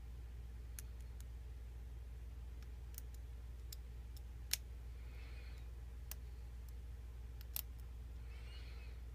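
Small, sharp metallic clicks of a lock pick working the pin stack of a Mako 427 six-pin padlock, scattered and irregular, two of them noticeably louder: one about halfway through and one about three-quarters through. Twice the pick gives a brief scratchy rasp in the keyway. A steady low hum sits underneath.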